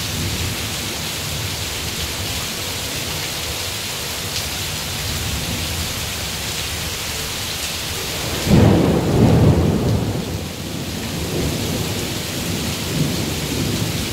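Steady heavy rain hissing, broken about eight and a half seconds in by a sudden loud clap of thunder that rumbles for about two seconds, followed by fainter rumbles.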